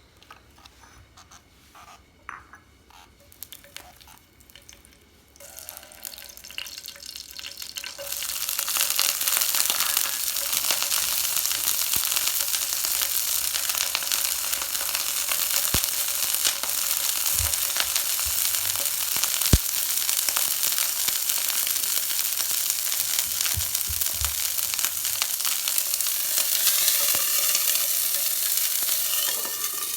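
Cicadas deep-frying in hot oil, sizzling. A few light clicks come first, then the sizzling builds from about six seconds in and stays loud and steady.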